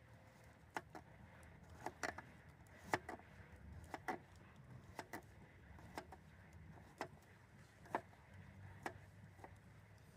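Knife tapping on a chopping board during food prep: short sharp knocks, roughly one a second, over a faint low rumble.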